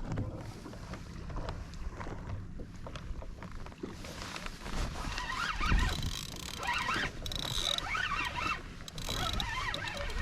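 Sea water sloshing against a plastic fishing kayak's hull as it rocks in the swell, with some wind on the microphone. In the second half there is a run of short, squeaky, chirping sounds.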